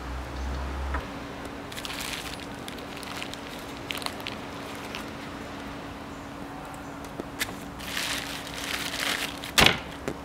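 Hands pulling modelling clay out of a black plastic bag: scattered crinkles and rustles of the plastic and soft handling noises over a faint steady hum, with a sharp knock near the end, the loudest sound.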